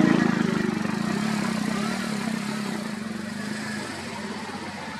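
A motor vehicle's engine running, loudest at the start and fading steadily as it moves away.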